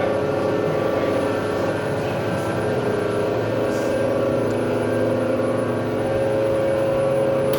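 Electric drive motor on a test bench running coupled to a second motor that serves as a generator load, giving a steady whine made of several tones.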